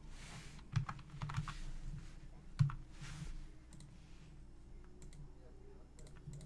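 Computer keyboard keys tapped and mouse buttons clicked, a scattered handful of light clicks with the sharpest about two and a half seconds in, over a faint steady hum.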